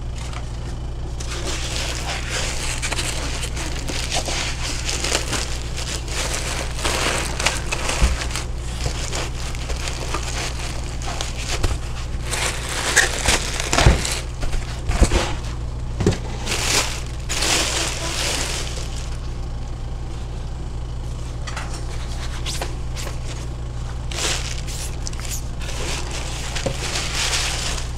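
Clear plastic bag and foam packing crinkling and rustling in irregular bursts as they are handled and pulled off by hand, with a few light knocks around the middle, over a steady low hum.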